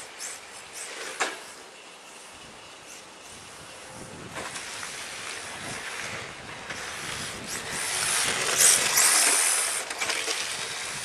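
HPI Sprint 2 RC drift car with a brushless motor driving and sliding over rough asphalt, a hissing run of tyre and drivetrain noise that builds and is loudest about eight to nine seconds in. A sharp click comes about a second in.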